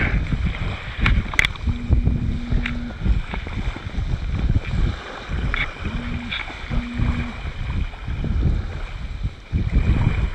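Gusty wind buffeting the camera microphone on an open shoreline, in uneven rumbling gusts. A short, steady low hum sounds three times, once about two seconds in and twice around six to seven seconds.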